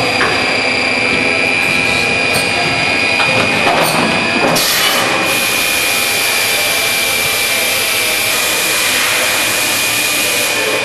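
Industrial machine for making 5-litre plastic containers running steadily with a constant high whine. A loud hiss starts about four and a half seconds in and stops just before the end.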